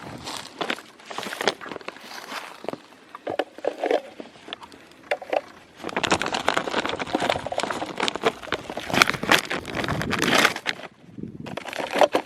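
Handling of roadside trash: crackling and rustling with scattered sharp clicks and knocks, busiest in the second half.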